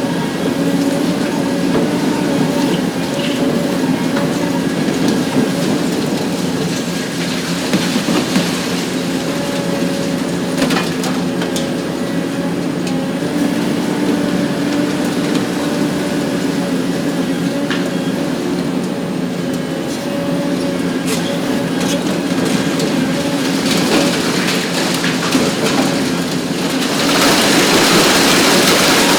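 Hitachi ZX 870-3 XXL long-front demolition excavator running steadily, its diesel engine and hydraulics giving a constant hum with a whine. Scattered sharp cracks and clicks as concrete is crushed by the demolition shear, and a louder hiss comes in near the end.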